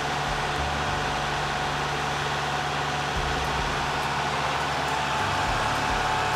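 Compact farm tractor's engine running steadily as the tractor drives slowly forward.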